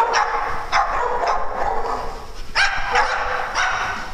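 Dogs barking during play, about six sharp barks in four seconds, some coming close together.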